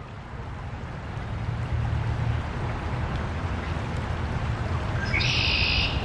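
Fast-moving river water rushing with a deep, steady rumble, fading in over the first two seconds. Near the end a bird gives one short, high, buzzy call.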